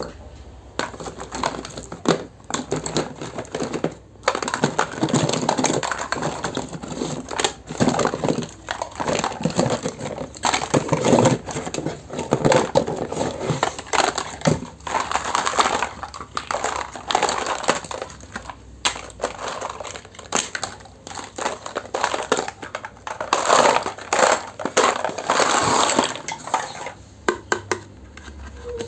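Plastic packaging crinkling and small plastic toy kitchen pieces clicking and rattling as a miniature kitchen set is unboxed, with dense, irregular crackles and clicks throughout.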